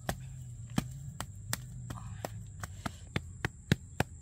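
A series of sharp knocks or taps, spaced out at first and then coming about three or four a second in the second half, with the loudest ones near the end.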